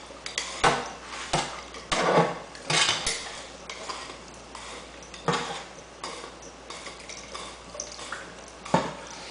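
A wire stem brush scraping and clinking through a metal hookah stem, with sharp metal knocks at irregular moments. The knocks come about every half second to second at first, then more sparsely, over the hiss of a running tap.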